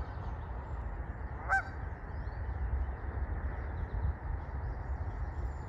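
A waterfowl gives one short honk about a second and a half in, over faint chirping of small birds and a low wind rumble.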